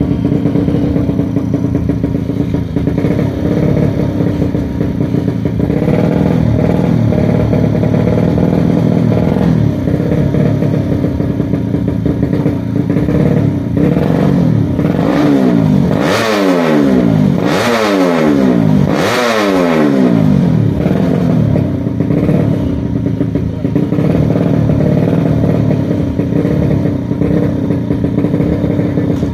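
Tuned 130cc four-stroke underbone drag bike idling loudly at the start line, its engine revved up three times in quick succession about halfway through, each rev rising and dropping back to idle.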